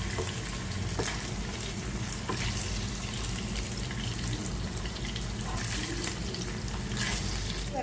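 Hot oil sizzling steadily in a frying pan, with a few light clicks of a utensil against the pan.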